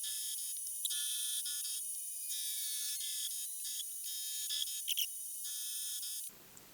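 Milling machine spindle running a small dovetail cutter through metal: a steady high-pitched whine of several tones, with a few faint ticks. It cuts off suddenly about six seconds in.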